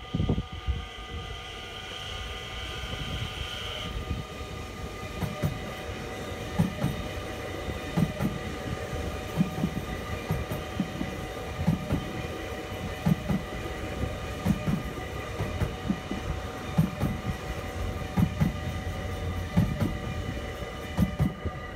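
NS Sprinter New Generation (CAF Civity) electric multiple unit passing close by, with a steady electric whine of several held tones from its traction equipment. Under the whine the wheels on the track give regular low thumps about every second and a half.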